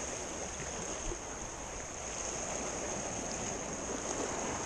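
Small sea swells washing against jetty rocks: a steady, even wash with a thin steady high hiss over it.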